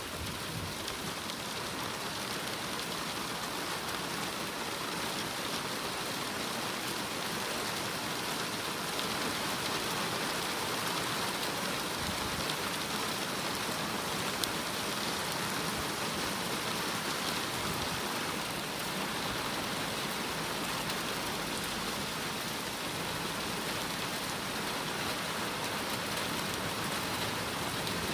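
Steady rain falling in a thunderstorm: an even, unbroken hiss of downpour.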